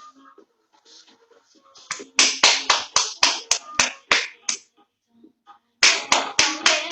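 Two quick runs of loud, sharp percussive cracks, about four a second, the first starting about two seconds in and the second near the end after a pause of about a second; faint background music before them.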